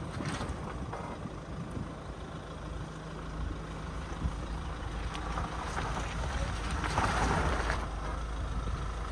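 Mahindra Scorpio N SUV engine running low and steady as the vehicle crawls through mud, with a swell of tyre and mud noise about seven seconds in.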